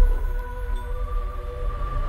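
Film score music: slow, sustained held tones over a deep low rumble, with the held notes changing about a second in.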